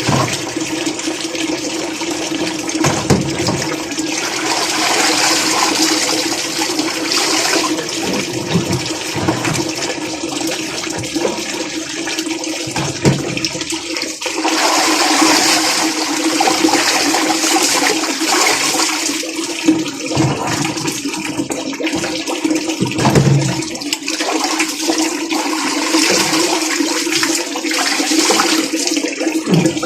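Washing machine running with a load of water: a steady motor hum under water churning and sloshing in the tub, swelling and easing every few seconds as the wash action turns.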